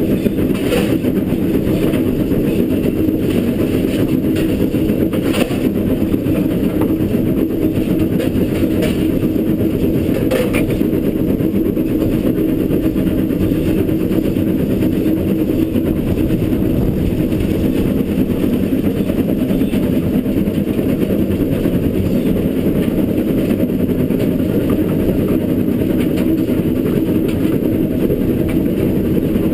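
Footplate noise of LNER K4 No. 61994, a Gresley three-cylinder 2-6-0 steam locomotive, working uphill: a steady, loud low rumble, with a few sharp clanks in the first ten seconds or so.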